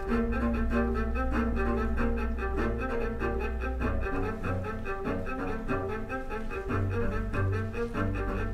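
Instrumental music accompanying a dance: long, deep notes that shift every few seconds beneath quick, evenly repeating higher notes.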